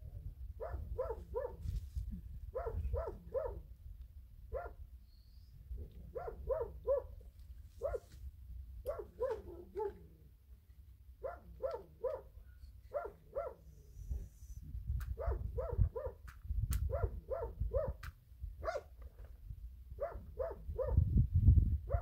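A dog barking in quick runs of three or four short barks, repeating every second or two, over a low rumble that swells near the end.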